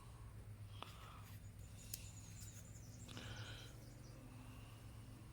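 Near silence: faint low steady hum with a couple of soft clicks and a brief faint rustle about three seconds in.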